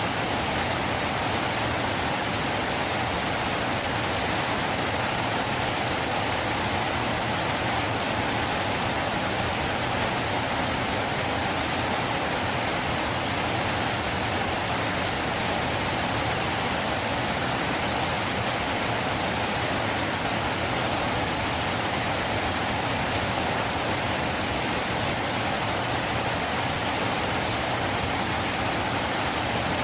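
River flowing: a steady, unbroken rush of water that holds the same level throughout.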